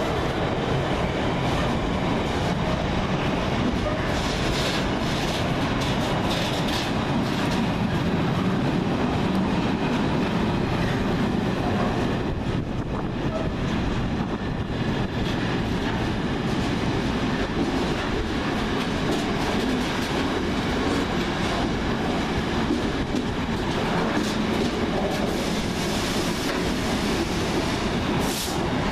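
Container wagons of a Freightliner intermodal freight train rolling steadily past at speed: a continuous rumble of steel wheels on rail, with runs of clicks as wheels cross rail joints.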